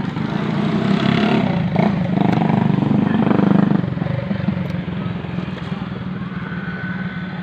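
A motorcycle engine running as it passes, growing louder about a second in and fading after about four seconds.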